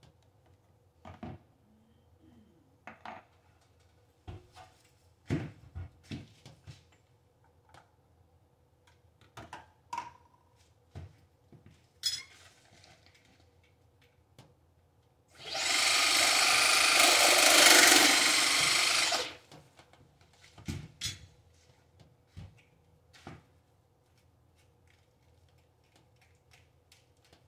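Scattered clicks and knocks of tools and drain parts being handled, then a loud, rough tool sound lasting about four seconds a little past the middle.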